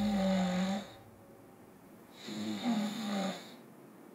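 A man snoring in his sleep: two snores about two seconds apart, each lasting about a second.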